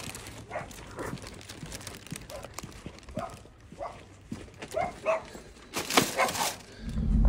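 A dog barking in short, repeated barks. Near the end come two sharp knocks, then a car's low rumble sets in.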